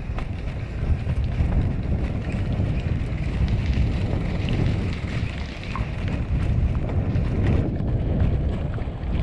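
Wind buffeting the microphone: a steady low rumbling noise that rises and falls, with a few faint clicks.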